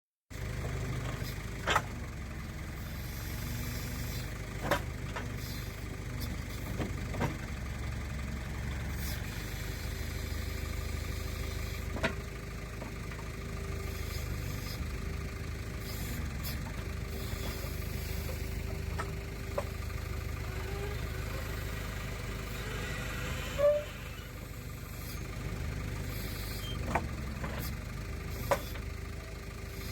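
Backhoe's diesel engine running steadily while it is worked, with a faint steady whine coming and going through the middle. About seven sharp knocks stand out at irregular intervals.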